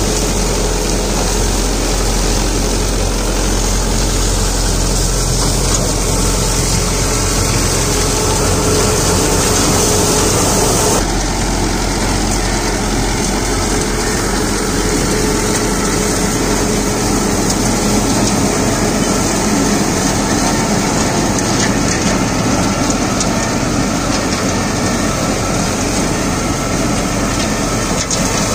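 Mahindra YUVO 575 DI tractor's four-cylinder diesel engine running steadily under load, driving a sugarcane trash cutter that shreds the cane trash, a dense, steady mechanical noise. The higher part of the noise changes abruptly about eleven seconds in.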